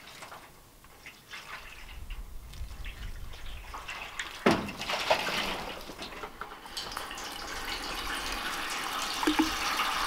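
A bucket of water splashing onto a corrugated metal roof: a sudden splash about halfway through, then water running off the roof and dripping into the galvanized steel gutter, growing steadily louder toward the end as it begins pouring into the PVC downspout pipe.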